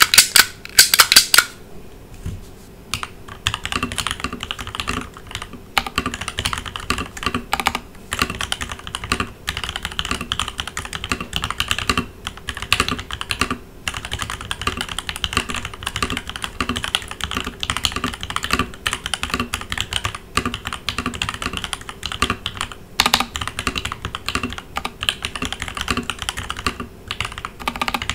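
Typing on a Leopold FC900R PD mechanical keyboard with linear Gateron Ink Black switches, stock keycaps and a Dacron-dampened case. A few loud, sharp keystrokes come in the first second or so and are followed by a short pause. Steady continuous typing then runs with brief breaks.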